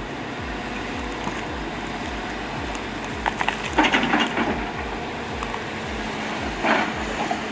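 John Deere 270D excavator running steadily, with two bursts of crackling and scraping, one around the middle and one near the end, as the bucket tears at a stump's roots and the soil around them.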